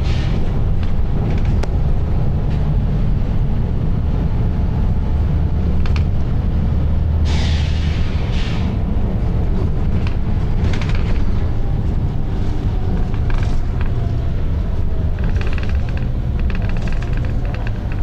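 Volvo B9TL double-decker bus's six-cylinder diesel engine running under way, a steady low drone heard from inside the cabin. Short bursts of compressed-air hiss from the bus's air system come about seven seconds in and again a few seconds later.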